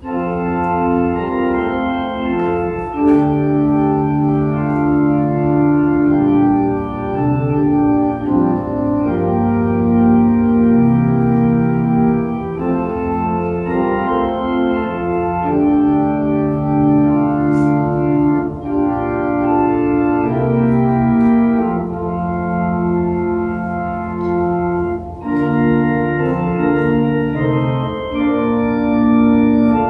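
Church organ playing slow sustained chords with a moving melody, starting abruptly.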